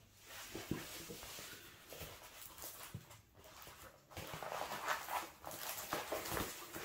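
Soft rustling and crinkling of a rolled diamond-painting canvas being rolled backwards by hand to flatten its poured-glue curl, with small handling clicks.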